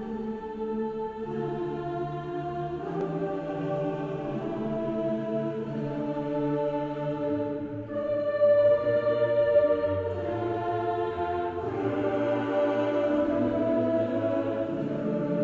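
Background music of slow choral singing, long held chords that change every couple of seconds.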